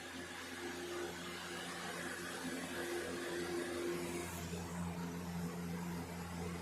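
Lasko Cool Colors box fan running steadily on high speed: an even rush of air over a low motor hum.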